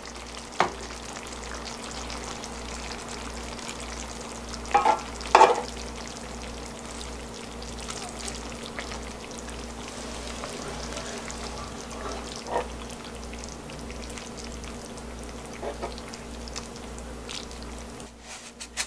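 A frying pan of spicy gochujang stir-fried thin-sliced pork belly still sizzling after the burner has been turned off, while the meat is scooped out of it, with a few scrapes and knocks of the serving utensil against the pan, the loudest about five seconds in. Near the end the sizzle drops away and a few light clicks follow.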